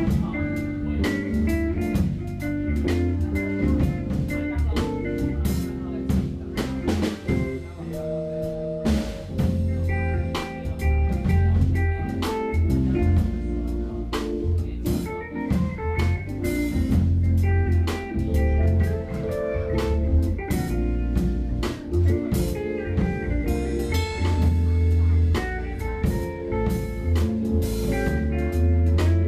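A jazz-fusion band playing an instrumental number live: electric bass with strong deep notes, drum kit, keyboard and electric guitar.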